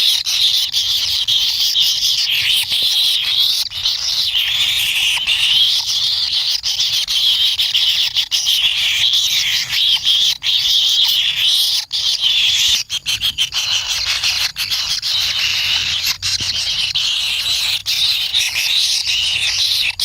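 Kingfisher chicks begging in the nest: a dense, unbroken chorus of high-pitched, wavering buzzy calls, with scattered sharp clicks, a cluster of them about two-thirds of the way through.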